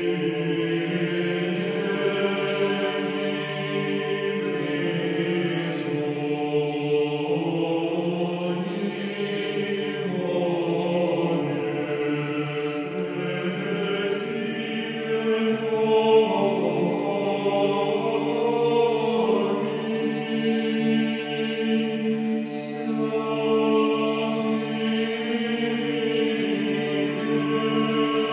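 Choir chanting slow, held notes over a steady low drone, in the manner of Russian Orthodox liturgical chant.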